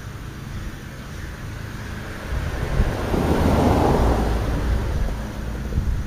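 A car passing on a nearby street: tyre and engine noise swells over about a second and fades over the next two, over a steady low rumble.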